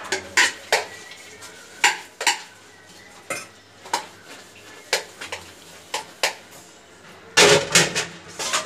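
Stainless steel plates and bowls clinking and clattering as they are soaped with a scrubber and stacked: a dozen or so sharp separate knocks, with a quick flurry near the end.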